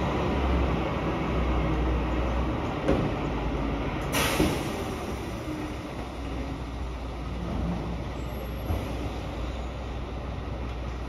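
MAN TGM 18.290 recycling truck's six-cylinder diesel engine running with a low rumble. There is a knock about three seconds in and a short sharp hiss of air about a second later.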